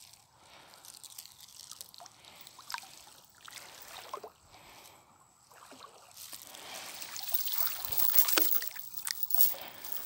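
Shallow lake water sloshing and splashing, with small drips and splashes. It grows louder from about six seconds in, as someone moves through the water and stirs it.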